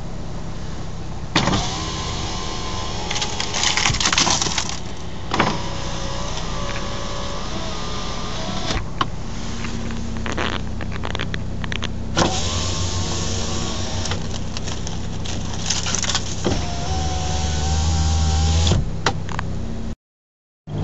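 A car's power window motor whines in several runs of a few seconds each, its pitch wavering as it labours against a side window coated in ice. A few sharp cracks come between the runs, over the steady low hum of the idling car.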